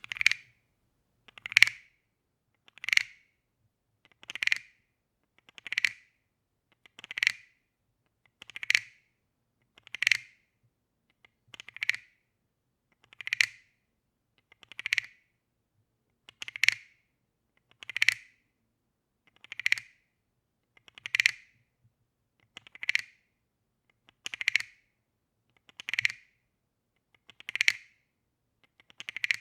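Wooden frog percussion toy croaking: a stick scraped along its ridged back gives a short ratcheting rasp, repeated steadily about once every second and a half.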